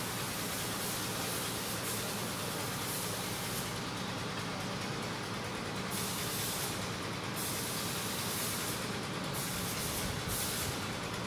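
Steady background hiss over a low hum. From about four seconds in, the highest part of the hiss drops away for a second or two at a time, several times.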